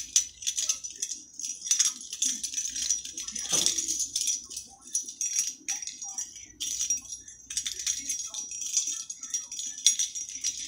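Tangled metal chain necklace with star charms jingling and clicking in the fingers as it is worked loose, a quick run of small, light, high clinks.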